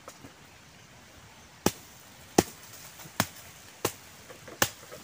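Five sharp blows, evenly spaced a little under a second apart: a freshly caught eel being struck to stun it.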